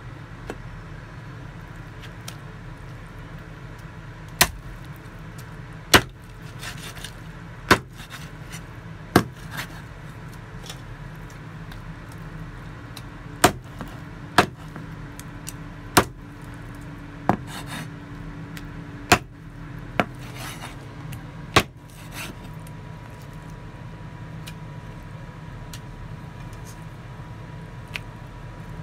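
Meat cleaver chopping raw chicken on a wooden cutting board: about a dozen sharp chops, one to two seconds apart, with no chops for the first few seconds and again in the last several seconds. A steady low hum runs underneath.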